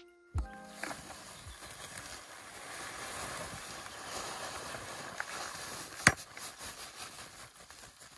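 Wood ash pouring and being shaken out of a woven sack into a bucket: a steady hiss and rustle, with a few small clicks and one sharp knock about six seconds in. It follows the last note of the background music.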